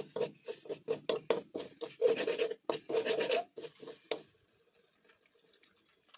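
Metal spatula scraping and stirring thick curry paste around a steel wok, in quick repeated strokes that stop about four seconds in.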